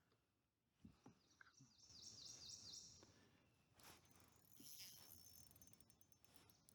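Near silence outdoors, with a faint bird trill of several quick, repeated high notes a second or two in.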